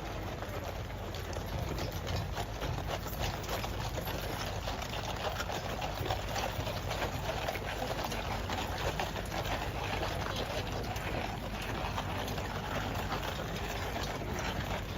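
Busy street ambience: a steady wash of traffic and crowd noise with many scattered sharp clicks.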